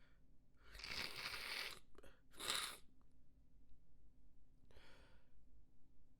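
A person's sneezing fit: a long, noisy blast of breath about a second in, then a sharper, louder sneeze, and a softer breath or sniff a couple of seconds later.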